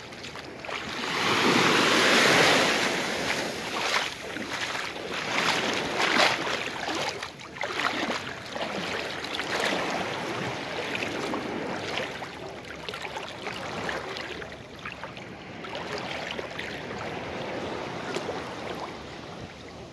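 Shallow seawater sloshing and splashing around the legs of someone wading in from the beach, with a loud rush of water about a second in and irregular swishes after it.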